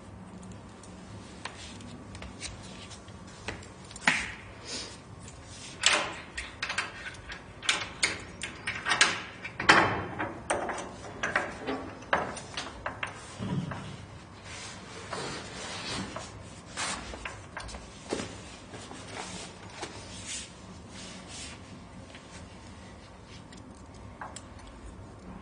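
A changing-room locker being opened and handled: an irregular run of sharp clicks, knocks and rattles, busiest and loudest near the middle, then thinning to a few soft knocks.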